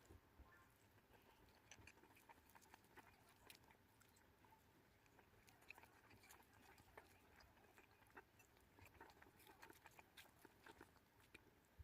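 Faint close-up eating sounds: chewing a stir-fry of turkey berries, with scattered small clicks and crunches.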